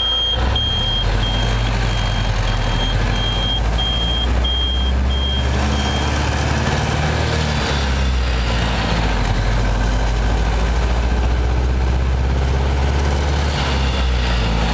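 Car engine and road noise heard from inside the cabin as a steady low drone. A high-pitched electronic beep repeats about twice a second, then stops about six seconds in.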